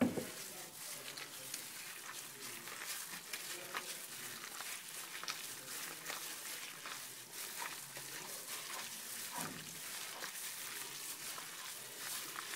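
A hand squelching and squishing as it mixes wet gram-flour (besan) batter thick with chopped spinach, potato and onion in a glass bowl. There are many small sticky clicks, and a sharp knock right at the start.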